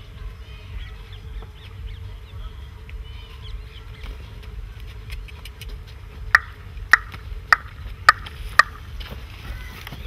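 Open-air field ambience: a low wind rumble on the microphone and faint bird calls. About six seconds in come five sharp clicks, about half a second apart and louder than everything else.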